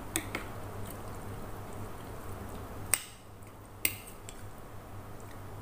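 Metal spoon clinking against a ceramic plate: a few light clicks near the start, then two sharp clinks about three and four seconds in.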